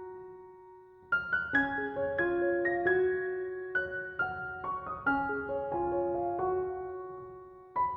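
Soft, slow piano music. Single notes ring and fade. The playing dies away, then a new phrase begins about a second in, and it fades again just before fresh notes come in near the end.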